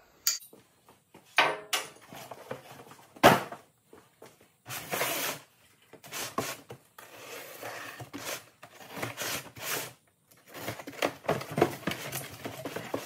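Cardboard shipping box and packing being handled: scraping and rustling of cardboard, with one sharp knock about three seconds in, and the box's flaps being pulled open near the end.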